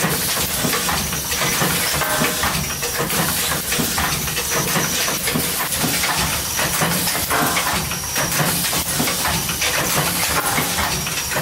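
Industrial machinery running with a loud, steady hiss over a low hum, with short pitched tones now and then.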